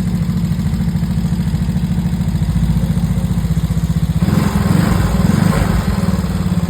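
Italika Vortex 300's liquid-cooled single-cylinder engine idling with a loud mechanical noise that sounds like valve tappets, with a brief louder rush of noise about four seconds in. The mechanic doubts it is the tappets and traces it to weak lubrication, with wear showing at the camshafts.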